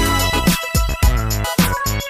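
Background music: an electronic hip-hop style track with a steady drum beat.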